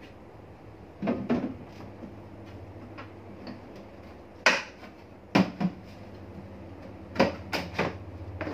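Hard plastic motorcycle side box (SEC 23L pannier) being handled and hooked back onto its metal mounting bracket: a series of sharp plastic knocks and clicks, the loudest about halfway through, then a quick cluster of three near the end as it is pressed down and latches.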